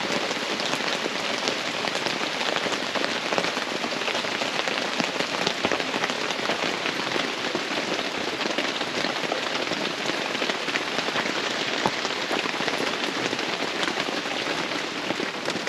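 Heavy downpour of rain and hail striking surfaces: a dense, steady hiss peppered with many sharp ticks of individual strikes.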